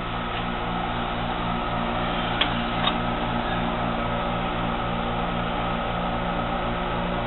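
1 hp, 110 V electric motor of a 7" x 12" horizontal band saw running steadily unloaded with no drive pulley fitted, a hum with a slight pulsing beat. Two light clicks come about two and a half and three seconds in.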